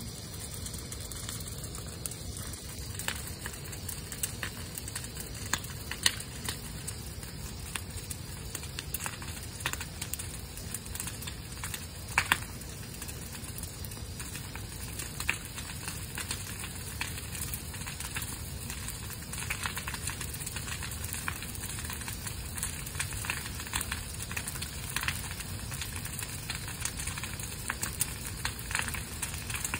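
Bonfire of brush and branches crackling and popping over a steady rush of flames, with the sharpest pops about six and twelve seconds in.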